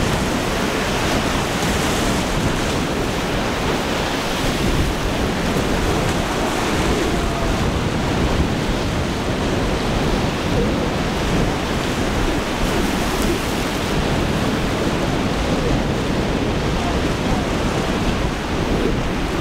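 Rough surf breaking and rushing in a steady wash of noise, with wind buffeting the microphone.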